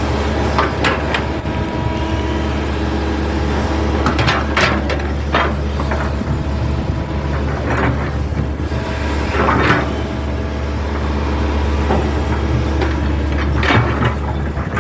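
Hitachi excavator's diesel engine running steadily at working speed, with several short, sharper noises over it as the machine works.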